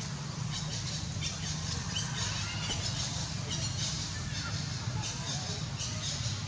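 Birds chirping in short high calls, several a second, over a steady low hum.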